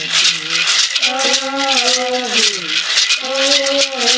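Mbaraka gourd rattles shaken in a steady, rapid rhythm, accompanying a sung chant. The chant's long held notes fall in pitch at the end of each phrase.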